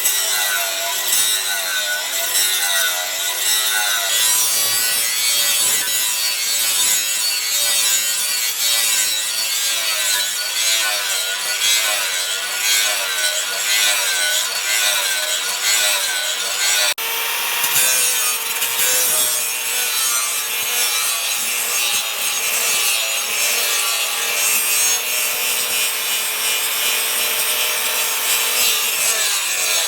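Rhythmic back-and-forth rasping of a hand tool working the piece, about two strokes a second. After a break about halfway through, the rasping turns steadier and more even.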